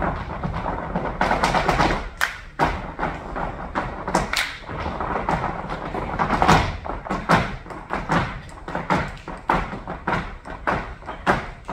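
Flamenco dancers' zapateado footwork: shoes stamping on the stage in rapid, irregular runs of sharp thuds and taps.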